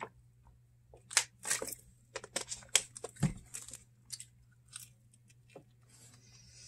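Thin plastic water bottle crinkling and crackling in the hand after a drink, in short irregular crackles, with one dull thump about three seconds in.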